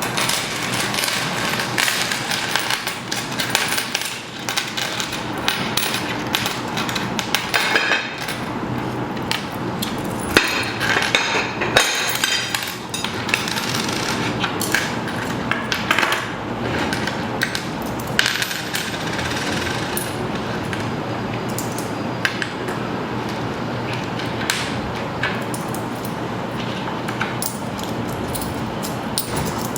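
A dense, irregular clatter of knocks and clicks, like hammering on hard objects, keeps up throughout.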